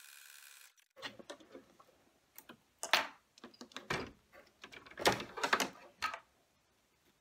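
Husqvarna Viking embroidery machine running as it finishes a triple bean-stitch outline, stopping just under a second in. Then a series of sharp clicks, knocks and rustling as the embroidery hoop is unclipped and slid off the machine's embroidery arm.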